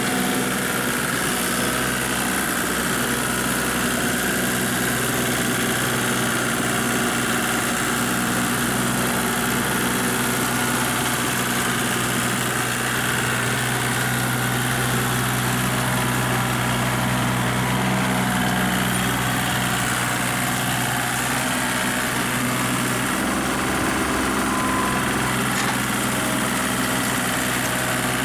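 Kubota compact tractor's diesel engine running steadily at an even speed while it pulls a rotary tiller through flooded paddy mud.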